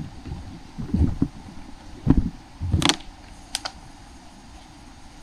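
A few scattered thumps and knocks, the sharpest about three seconds in, with a faint low rumble between them.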